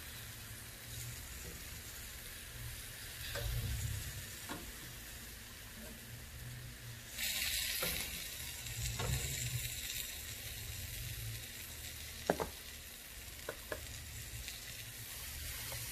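Chicken drumsticks sizzling on a gas grill. The sizzle grows louder about halfway through as the pieces are turned with metal tongs, and a few sharp clicks come near the end.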